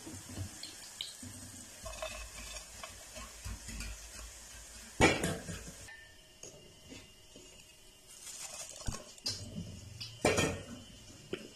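Hot oil sizzling in a metal frying pan as fried onion pakoras are lifted out with a wire skimmer, the skimmer scraping and knocking against the pan, loudest about five seconds in and again near the end. The sizzle fades after about six seconds.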